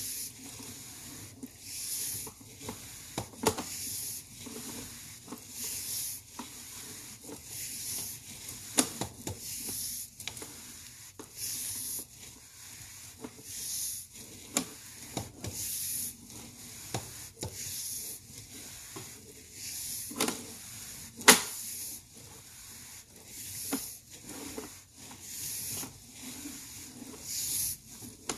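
Sewer inspection camera's push cable rubbing and scraping as it is fed by hand into the line, in repeated strokes about every two seconds, with occasional sharp clicks, the loudest about three quarters of the way through.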